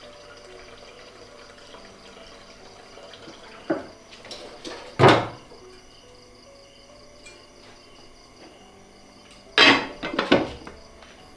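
Water splashing in a few short bursts, with knocks of kitchenware, as in washing up by hand. The loudest splash comes about five seconds in and a cluster follows near the end.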